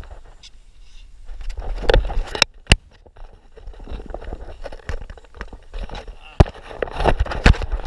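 Action camera being handled and moved: rubbing on its housing and mount with several sharp knocks, the loudest a bit under three seconds in, about six and a half seconds in, and near the end.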